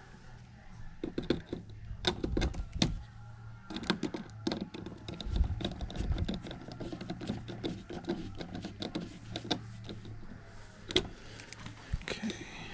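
Irregular clicks and light clattering from hands working with tools and small parts, over a steady low hum.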